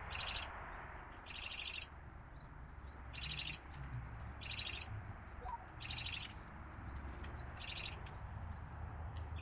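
A high, rapid chirping trill repeated six times, roughly a second apart, from an animal outside, over a low steady hum.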